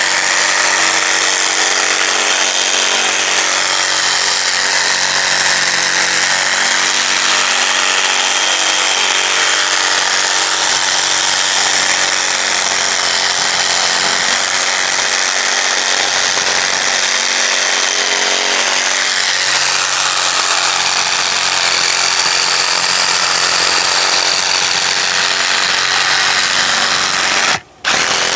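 Sawzall reciprocating saw fitted with a 15-inch Japanese-tooth pruning blade, running steadily as it saws through wood, its pitch shifting about two-thirds of the way through; it cuts out for an instant near the end.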